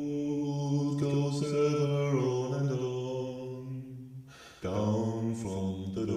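Slow vocal music in a chant-like style: low voices holding long notes, with a short break about four and a half seconds in.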